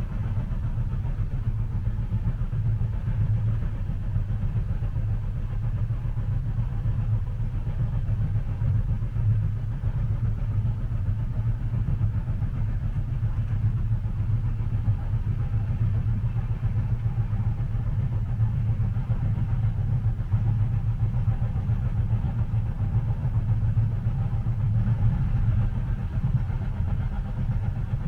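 Steady low rumble of a train, heard from inside a passenger carriage.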